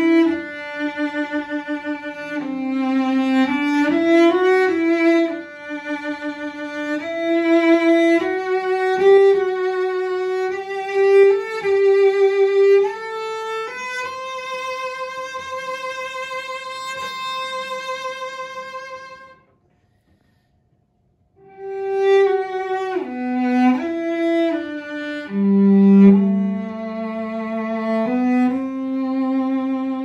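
A 1984 Lionel Karl Hepplewhite English cello played solo with the bow: a slow melody of single notes in its upper range. A long held note fades out about two-thirds of the way through, followed by a short pause before the melody resumes.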